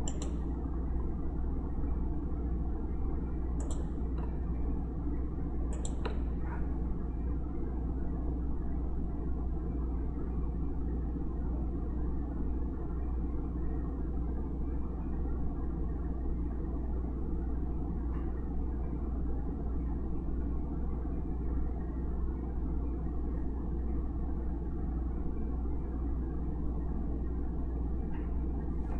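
Steady low rumbling hum of background noise, with two faint sharp clicks about four and six seconds in.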